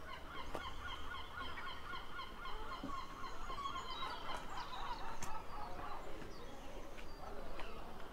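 A group of birds calling at once, many quick overlapping calls that thin out after about six seconds, with a few sharp clicks among them.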